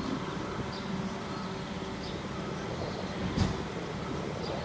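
Outdoor street ambience: a steady low rumble like distant traffic, with faint short high chirps now and then and a brief knock about three and a half seconds in.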